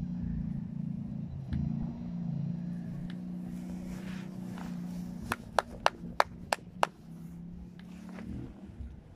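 An engine running steadily with a low hum, stopping near the end. About halfway through, six sharp knocks come in quick succession over about a second and a half.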